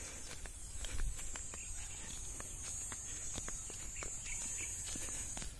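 Footsteps crunching and clicking over dry, cracked paddy soil, with a steady high-pitched hiss that cuts off near the end and a low rumble of wind on the microphone.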